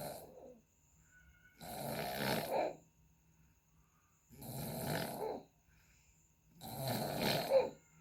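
A sleeping person snoring, a snore about every two and a half seconds, each one lasting about a second. It is the kind of snore likened to a racing motorcycle exhaust.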